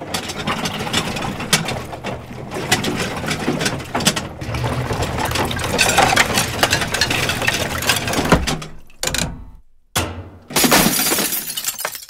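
A front-loading washing machine churning a load of crockery, a continuous mechanical rattling and clattering with crockery breaking inside the drum. It dies away about nine seconds in, followed by a short burst of clatter near the end.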